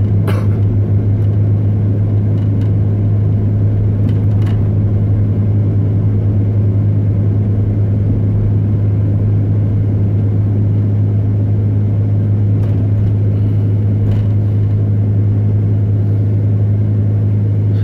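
Pickup truck driving, heard from inside the cab: a steady, unbroken low drone of engine and road noise.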